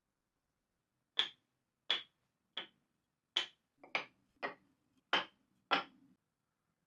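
Eight sharp knocks of a hand tool being struck in woodworking, about one every two-thirds of a second.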